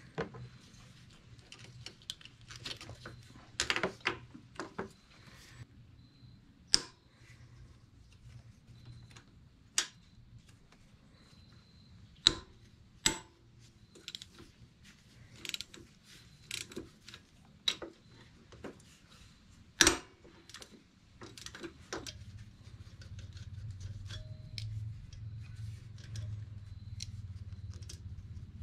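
Scattered small metallic clicks and clinks of a screwdriver and small engine parts being handled, a few of them sharp and loud. A low steady hum comes in about two-thirds of the way through.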